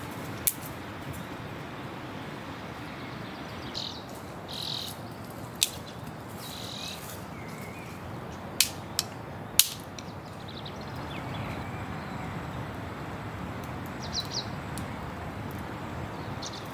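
Small campfire of bark and dry manuka wood crackling, with a few sharp pops, over a steady hiss. Birds chirp briefly now and then.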